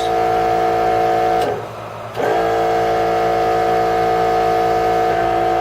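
Electric oil-change pump running with a steady whine as it draws used engine oil out into a jug. It is switched off about a second and a half in and back on under a second later, topping off the jug.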